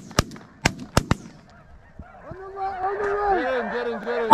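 A quick volley of about five shotgun shots in the first second or so, then snow geese honking in a dense chorus.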